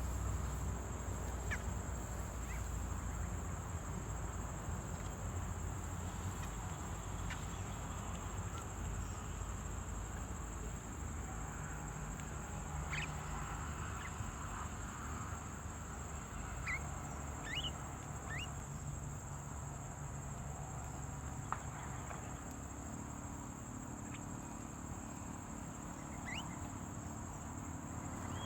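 Outdoor ambience: a steady high-pitched insect drone, with a few short bird chirps here and there, mostly in the middle and near the end, over a low rumble.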